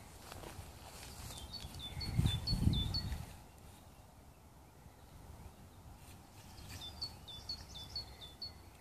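A small bird singing a quick phrase of repeated high two-note calls, heard twice, over faint outdoor background noise. A brief low rumble about two seconds in is the loudest sound.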